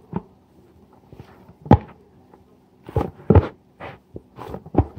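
Stiff plain-flour samosa dough being kneaded by hand in a bowl: irregular dull thumps and slaps as the dough is pushed and turned against the bowl, about seven in all, the loudest about two seconds in.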